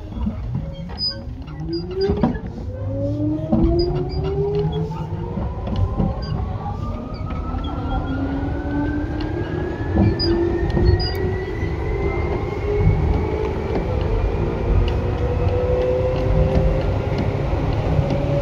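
Tokyu 8500 series electric train's traction motors whining as it accelerates from a standstill, several tones rising steadily in pitch throughout, over a running rumble with scattered clicks and knocks from the wheels on the track.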